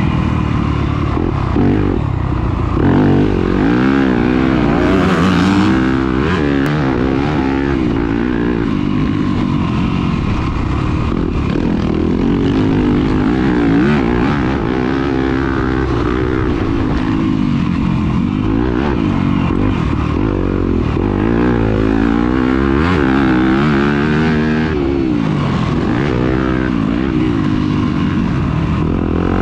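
Dirt bike engine revving hard and easing off over and over as the bike is ridden, its pitch climbing and dropping every second or two.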